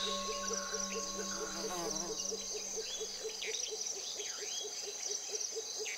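Tropical nature ambience: a steady chorus of insects, a lower call pulsing about four times a second, and bird calls that sweep down in pitch. A held tone stops about two seconds in.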